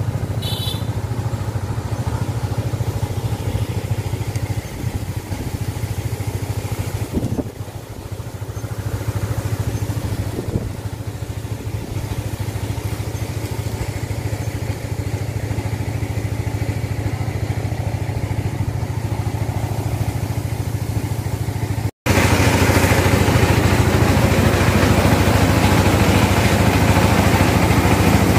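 Small stationary engine on a cart-mounted rice mill running steadily with a low hum. About 22 seconds in it cuts to the louder, fuller noise of a rice mill running.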